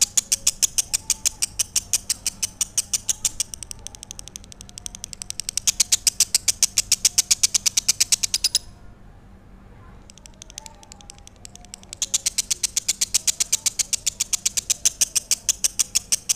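Lovebird singing: long runs of rapid, evenly repeated high chirps at about seven a second. The chirping stops a little past halfway and starts again about three seconds later.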